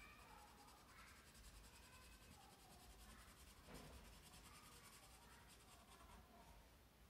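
Faint scratching of a colouring tool on sketchbook paper as a drawing is coloured in with short back-and-forth strokes.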